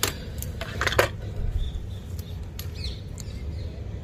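A few light clicks and knocks as a handheld digital multimeter and its test probes are handled and set against a circuit board, the loudest about a second in, over a steady low background rumble.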